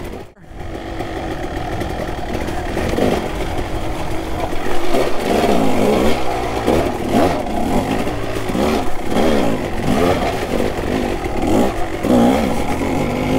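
Kawasaki KX250 dirt bike engine being ridden hard, its pitch rising and falling again and again as the throttle is worked on and off, with some clatter. The sound drops out briefly right at the start.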